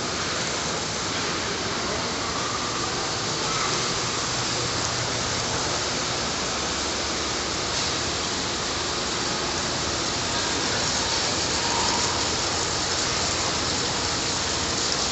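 Steady rushing and splashing of running water from a children's water-play table, where a fountain jet keeps a ball floating, with faint distant voices.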